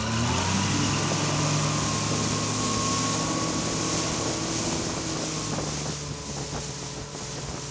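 Honda 115 four-stroke outboard motor running under way on a pontoon boat, its pitch rising over the first second as it speeds up, then holding steady, over the rush of water and wind.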